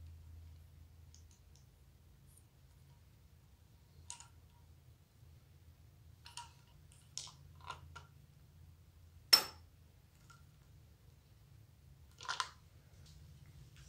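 Scattered light clicks and clinks of small metal parts being fitted to an aluminium CCTV camera housing, with one sharp click about nine seconds in, the loudest, and a short clatter of clinks near the end. A low steady hum runs underneath.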